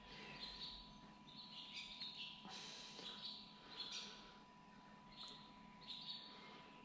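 Faint bird song: short chirping phrases repeated every second or so, over a faint steady electrical hum.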